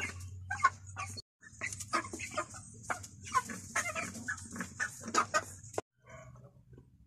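A flock of white broiler chickens clucking, many short calls overlapping. The sound cuts out briefly about a second in and turns much quieter near the end.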